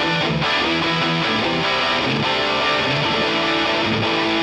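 Background music: a guitar-driven rock track with strummed electric guitar.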